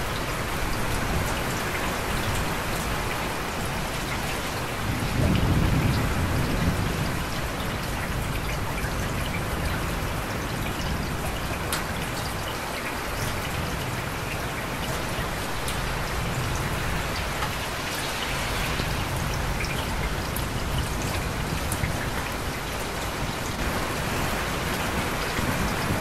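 Steady heavy rain falling, with scattered sharper drop impacts and a low rumble of thunder swelling about five seconds in.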